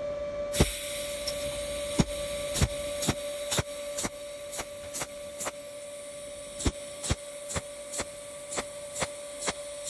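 Pulse cold welding machine firing spot welds through a tungsten electrode onto thin steel tube: a sharp tick about twice a second, each one a weld pulse, with a short pause about six seconds in, over a steady hum and hiss.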